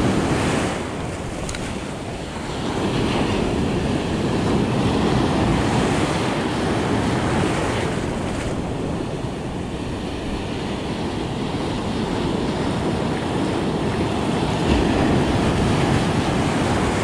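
Ocean surf breaking and washing in close by, a steady rush that swells and eases with each wave.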